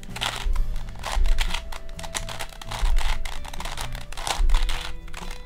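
An original Rubik's brand 4x4 cube being turned quickly by hand: a rapid, irregular run of plastic clicks and clacks as its layers turn.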